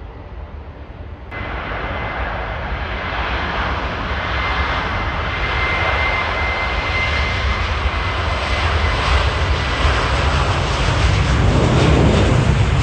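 Jet engines of a Finnair Airbus A321 at high power on the runway: a steady roar with a thin high whine, coming in abruptly about a second in and growing louder, with a deep rumble building near the end.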